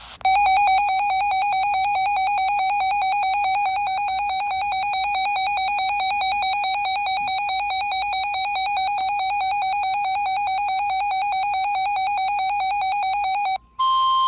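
Weather radio receiver's electronic alert alarm: a loud, rapidly warbling two-pitch tone that signals an incoming severe thunderstorm warning. It cuts off after about 13 seconds, and near the end the steady 1050 Hz NOAA Weather Radio warning tone begins.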